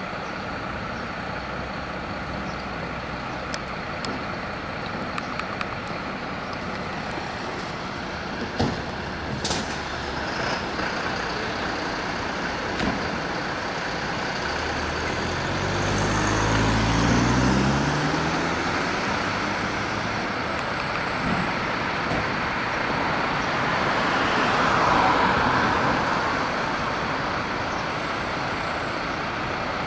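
Diesel engines of Mercedes fire trucks running at idle. About fifteen seconds in, one engine revs up with its note rising as a vehicle pulls away. There are a few sharp clicks and knocks around eight to ten seconds in.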